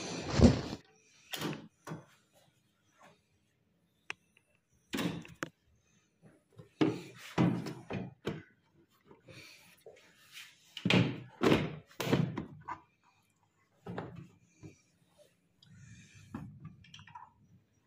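Irregular knocks and thuds as plastic and metal washing-machine parts are handled and fitted during reassembly, with short clusters of clattering about seven and about eleven seconds in.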